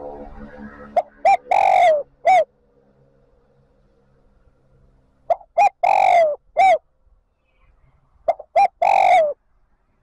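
Spotted dove cooing its song three times, about three and a half seconds apart. Each phrase is a couple of short notes running into one long coo that dips at the end.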